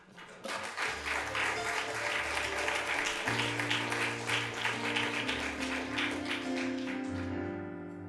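Audience applauding over instrumental music. The applause fades out near the end while the music carries on.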